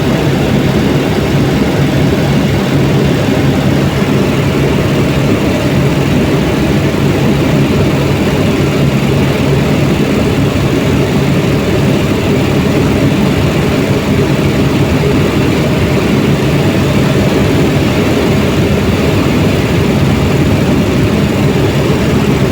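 Helicopter running with a loud, steady engine and rotor noise and a constant low hum, without change.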